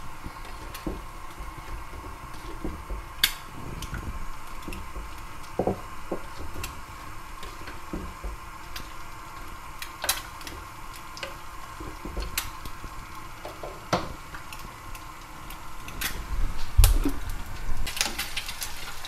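Plastic spatula stirring vegetables in a non-stick saucepan on a gas hob, with scattered light knocks and scrapes against the pan over a faint steady hum. Near the end the clatter gets busier and louder as the spatula goes to the frying pan.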